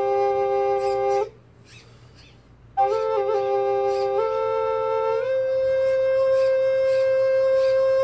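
Two recorders played at once by one player, holding two sustained notes together. The notes break off for a breath about a second in and come back after a second and a half, then shift pitch a few times.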